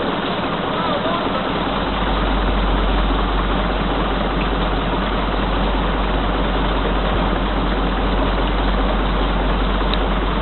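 Steady rushing noise of a steam launch under way on a river, its hull moving through the water with wind over the boat. A low steady rumble sets in about two seconds in and holds.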